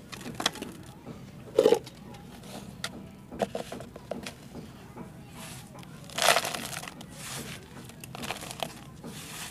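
Dry, crumbly clay soil being crushed and scooped by hand into a plastic tray, with irregular crunching and crumbling. There are two louder bursts, about one and a half seconds in and about six seconds in, the second the loudest.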